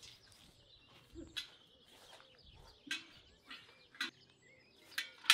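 Sharp taps or knocks, roughly one a second, followed near the end by a loud metallic clang that rings on briefly.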